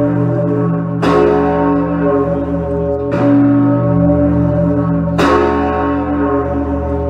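The Concordia Peace Bell, a single large bell, rung with three strokes about two seconds apart. Each stroke rings on into the next.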